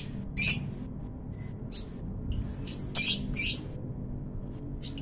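Male kolibri ninja sunbird singing in its cage: a string of short, high-pitched chirping notes, bunched most closely about two and a half to three and a half seconds in.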